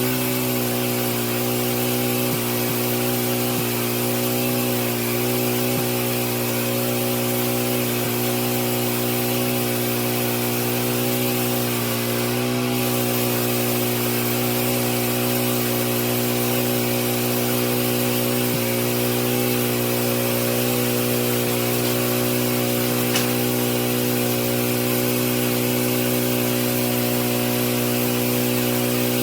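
An old pressure washer running steadily at full speed, its motor giving a constant hum under the hiss of the water spray. There is a faint tick about 23 seconds in.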